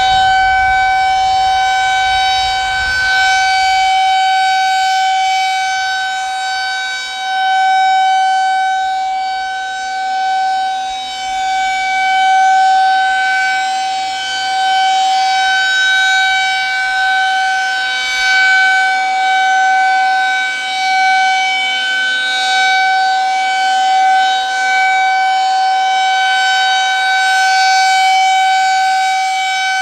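Federal Signal 2001-SRNB outdoor warning siren sounding a steady tone during its monthly test. It holds one pitch with a stack of overtones, swelling and fading about every four seconds as the rotating head sweeps past.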